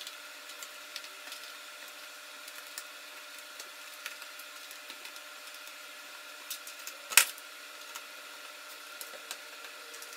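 Scattered light ticks and clicks of a small screwdriver and screws being worked out of a MacBook Pro's aluminium case, with one sharper click about seven seconds in, over a faint steady hiss.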